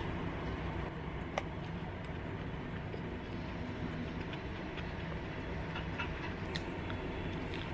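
Soft chewing of a lettuce wrap, with a few faint clicks, over a steady low hum.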